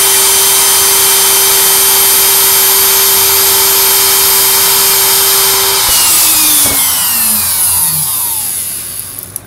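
CNC router spindle with a dovetail bit running at a steady high whine, then switched off about six seconds in and spinning down, its pitch falling as the noise fades. A short click comes just before the end.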